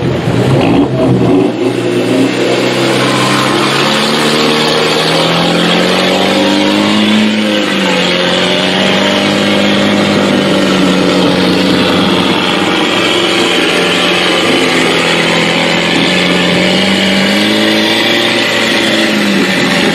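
Off-road truck engine running hard under load in deep mud, revving up and easing off a couple of times.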